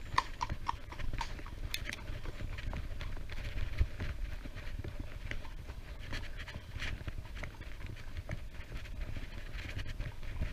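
Wind buffeting the microphone during a bicycle ride, a steady low rumble with scattered light clicks and taps over it.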